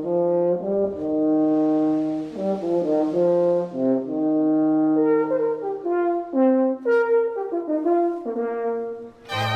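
Orchestral score played on brass, horn-like instruments, in a melody of held and stepping notes. Strings join in near the end.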